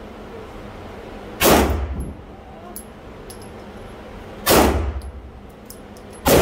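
Pistol shots at an indoor range: three single shots, the first two about three seconds apart and the third near the end, each with a short echo off the range walls.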